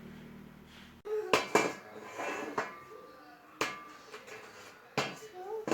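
A series of sharp knocks and clatters of hard objects, about six strikes spread unevenly, some in quick pairs, with brief short vocal sounds between them.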